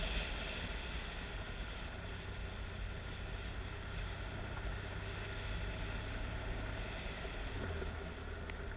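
Adventure motorcycle's engine running steadily while riding a dirt forest road, mixed with wind and tyre noise; the engine note shifts slightly near the end.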